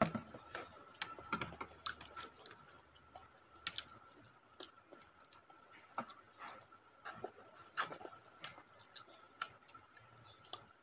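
People chewing instant noodles close to the microphone: irregular wet mouth clicks and smacks, with a faint steady high-pitched hum underneath.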